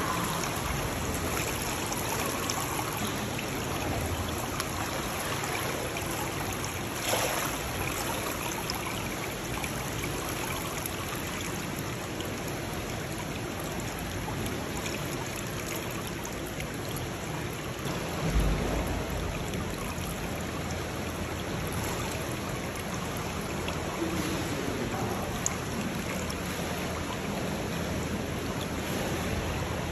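Swimming-pool water lapping and sloshing at the pool edge, a steady watery wash with a louder slosh about 7 seconds in and again around 18 seconds.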